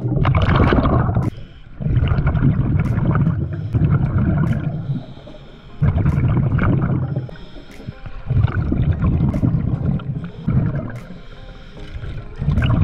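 Scuba diver's exhaled air bubbling out of the regulator, heard underwater through the camera housing: loud gurgling rushes of about a second each, one per breath, with short quieter gaps between them.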